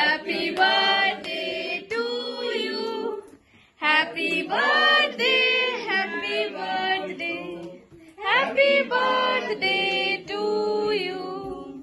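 Several voices singing together without accompaniment, in three phrases with short breaks between them.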